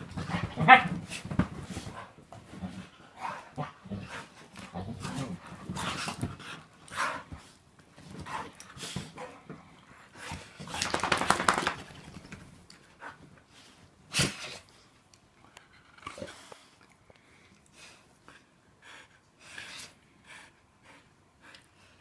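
A pit bull and a husky playfighting on a bed: dog play vocalizations, including a drawn-out pitched call about half a second in, mixed with short sharp snaps and thumps of bodies and paws on the bedding. A single loud sharp sound comes about fourteen seconds in, after which the scuffling grows quieter and sparser.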